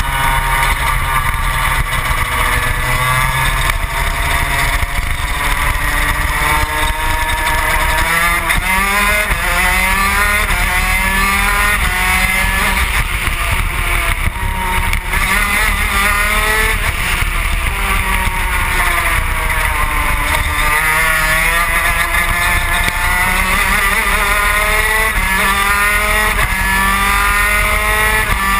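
Yamaha TZ250 two-stroke racing engine of a superkart at full race pace, heard on board, its pitch climbing and dropping again and again as it accelerates and slows, over steady wind noise.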